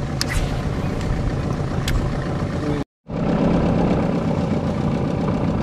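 Boat's outboard motor running steadily. The sound cuts out completely for a moment about three seconds in, then the drone resumes.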